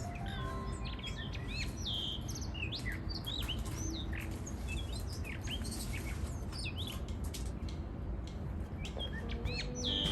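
Blue rock thrush singing its spring song: a steady stream of quick whistled notes that swoop up and down, over a steady low background rumble.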